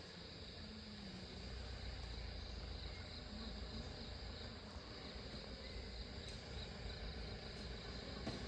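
Steady high-pitched chirring of forest insects, with a low rumble underneath that grows a little louder about a second in.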